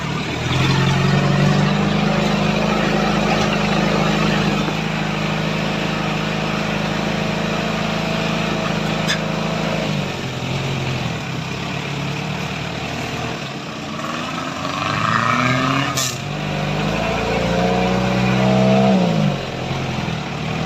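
Off-road vehicle engine pulling steadily in low gear over a rough forest track. It eases off about halfway through, then revs up again and drops back near the end. A single sharp knock comes about three quarters of the way in.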